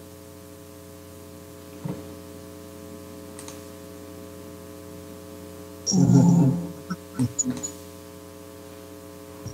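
Steady electrical hum made of several even tones, with a few faint clicks, and a brief loud low-pitched sound about six seconds in.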